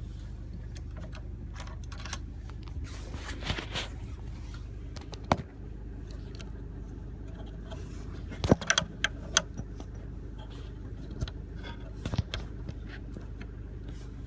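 Metal clicks and clinks of keys being handled and a blank key being fitted into the clamp of a Futura NA key-cutting machine, over a steady low hum. There is one sharp click about five seconds in, and a quick run of clicks around eight to nine seconds in.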